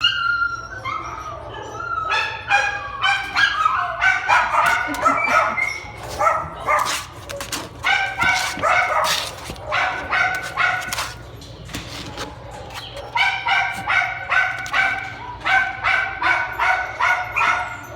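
Dogs barking and yipping over and over in quick, high-pitched barks, with a short lull about twelve seconds in.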